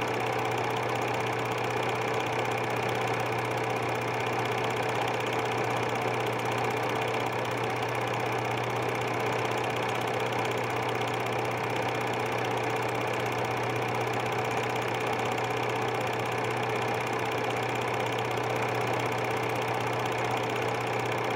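Super 8 film projector running steadily: an even mechanical whir over a low hum.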